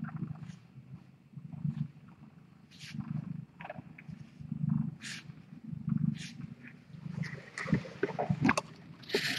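Domestic cat purring close by, the purr swelling and fading with each breath about once a second, with a few faint scratchy rustles.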